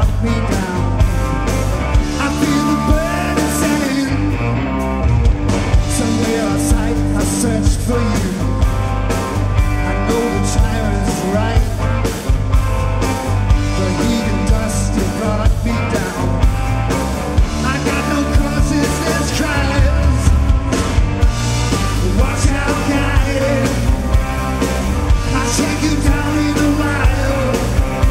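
Live rock band playing a song: electric guitar, bass guitar and drum kit, with singing over them.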